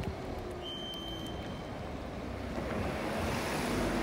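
Road traffic noise as a city bus drives past close by: a steady rush of tyres and motor that swells a little louder near the end.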